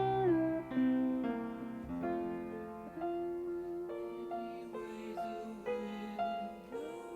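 Background music: a soft piano or keyboard melody over held low notes.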